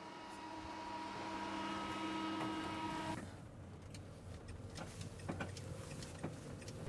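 A steady mechanical hum with several held tones swells slightly, then cuts off about three seconds in. It gives way to the quieter low rumble of a small Renault Kangoo van driving, heard from inside the cab, with scattered light clicks and knocks.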